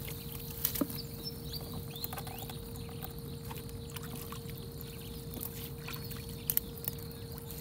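Water dripping and splashing as a fishing net is hauled by hand out of the river over the side of a small boat. A couple of sharp knocks come about a second in and again near the end, over a faint steady hum.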